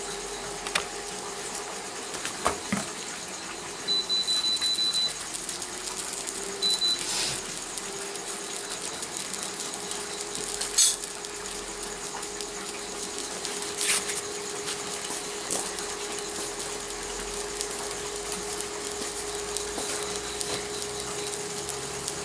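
Portable electric infrared cooktop being switched on: a high beep lasting about a second, then a short second beep, while its cooling fan hums steadily. A few sharp clicks and knocks of things being handled and set down, the sharpest about halfway through.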